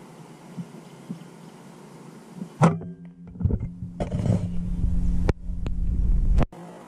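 A single sharp shot from a PCP air rifle about two and a half seconds in, followed by a few seconds of low rumbling and knocking as the gun and its scope-mounted camera are handled, cutting off suddenly near the end.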